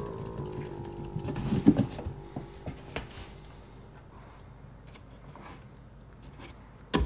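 A Bengal cat scrabbling and batting about inside a cardboard box: scratchy rustles and taps on the cardboard, loudest about a second and a half in, then fainter. A sharp knock comes right at the end.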